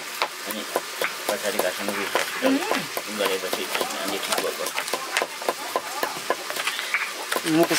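Cleaver chopping red onion on a plastic cutting board: a quick, uneven series of knocks of the blade on the board.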